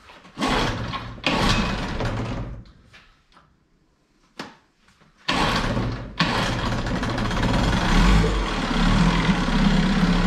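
Evinrude 6 hp two-stroke outboard being started: it fires and runs briefly, then dies out. About five seconds in it catches and settles into a steady run. It needed a little extra richness (choke) to start because it was not fully warmed up.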